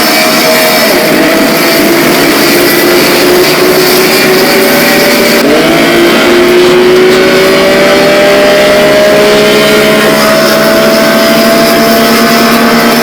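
A vehicle engine accelerating: its pitch climbs slowly, falls sharply about five and a half seconds in, as at a gear change, then climbs slowly again.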